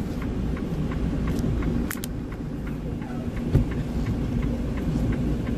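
Diesel engine of a 2020 Freightliner Cascadia semi-truck running, a steady low rumble heard inside the cab, with light clicks and rattles. A sharp double click comes about two seconds in, and a thump about three and a half seconds in.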